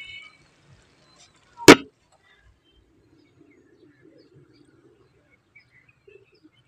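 One sudden, sharp, loud hit about two seconds in, then quiet outdoor ambience with a faint low murmur and scattered small high chirps.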